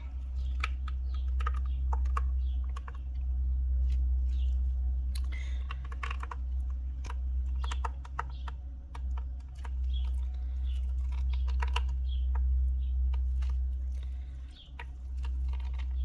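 Irregular small clicks and crinkles of a fine nylon mesh straining bag being squeezed and twisted by hand, wringing oil out of blended fig-leaf pulp, over a steady low hum.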